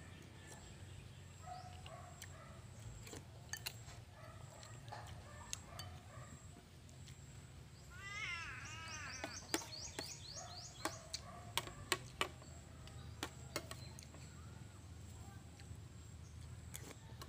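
Spoon and fork clinking and scraping against a plate and a glass bowl during a meal, in scattered sharp clicks. About eight seconds in, a bird gives a short harsh call followed by a quick run of high chirps.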